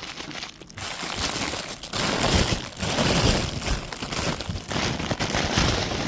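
Packaging crinkling and rustling as a cap is handled and pulled out of it, louder from about two seconds in.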